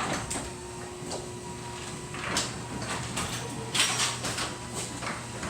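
Newly installed garage door opener running as the door travels down: a steady motor hum with scattered clanks and rattles from the door and rail.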